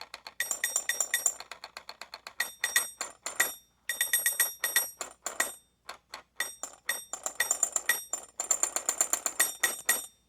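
Caveman alarm clock's mechanical alarm ringing: rapid metallic strikes with a bell-like ring, about six a second, in runs broken by a few short pauses.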